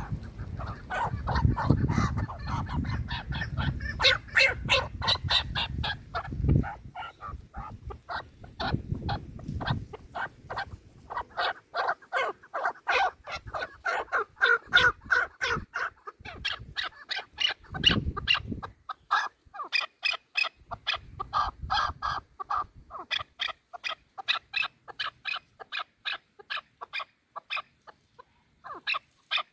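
Chukar partridges calling: a long, unbroken run of short, clucking notes, several a second. A low rumble sits under the calls in the first several seconds.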